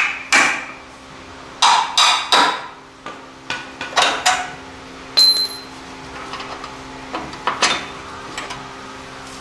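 Sharp metal-on-metal clanks and knocks, about a dozen, bunched in the first half, as a rusty steel lower control arm is worked off a truck frame. About five seconds in comes one bright ringing ping. A steady low hum runs underneath.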